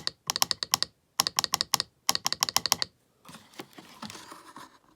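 Homemade bus-bar Morse key worked rapidly, its contact clicking in quick runs of taps, about four runs in the first three seconds. Softer rustling handling noise follows.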